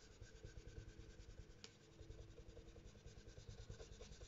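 Faint, rapid rubbing of an ink blending brush on paper, about seven or eight strokes a second, with a brief lull about two seconds in.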